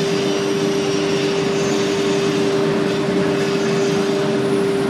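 CNC router spindle running at a steady whine while its bit carves MDF, with a rough cutting hiss underneath.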